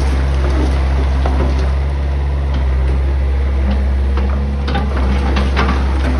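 Backhoe's diesel engine running steadily with a low hum, and a run of sharp clatters in the last couple of seconds as the bucket scrapes up crushed stone.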